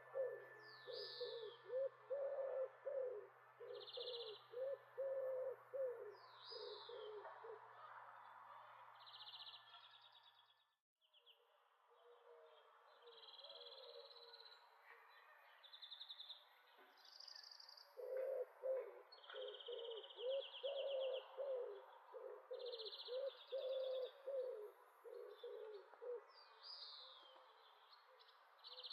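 Faint animal calls: runs of short low calls repeated a few times a second, with higher chirps and buzzy notes over them, breaking off briefly about eleven seconds in.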